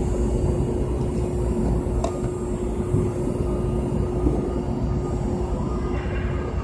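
Steady low mechanical rumble with a constant hum, and a single sharp click about two seconds in.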